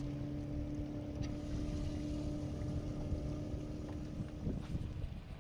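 Boat motor humming at a steady pitch over a low rumble, the hum dropping away about four and a half seconds in.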